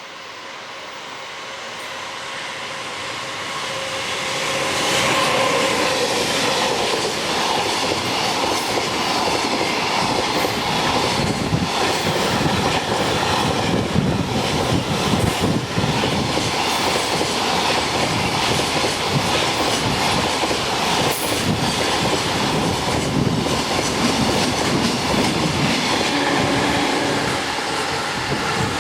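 Freight train approaching and passing: the sound grows over the first few seconds, then wagons roll by close with wheels clacking over rail joints.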